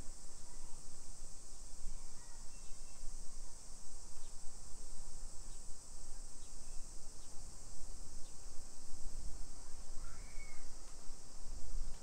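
Cicadas buzzing in a steady, high-pitched chorus that does not let up, with a single short chirp about ten seconds in.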